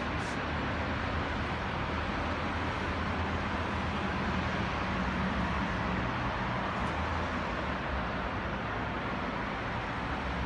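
Steady wash of road traffic from a busy multi-lane street below, a continuous hum with no single vehicle standing out.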